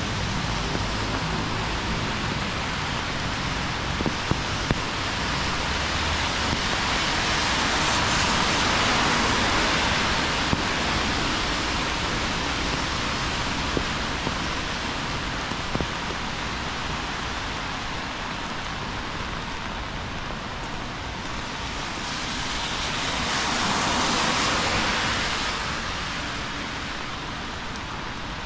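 Heavy rain pouring on a city street, a dense, steady hiss. It swells louder twice, about a third of the way in and again near the end, and a few sharp ticks come through in the first half.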